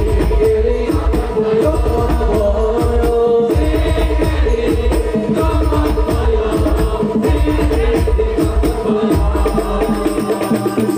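Live sholawat: male voices singing an Islamic devotional melody through microphones, over a steady beat of hand percussion.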